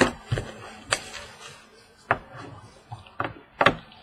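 A series of short, sharp knocks and taps, about six in four seconds, from trading card packs and boxes being handled and set down on a table.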